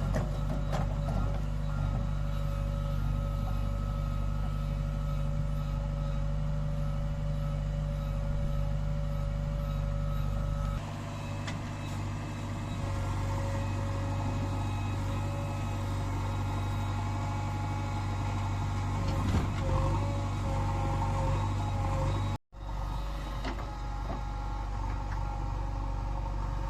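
Diesel engine of heavy earthmoving machinery running steadily under work, with a constant whine above the engine note. The sound shifts about eleven seconds in and drops out for an instant near the end.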